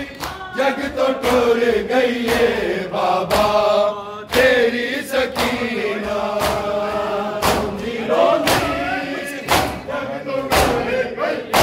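A group of men chanting a noha in unison, with regular thuds of hands striking chests (matam) beating time under the chant.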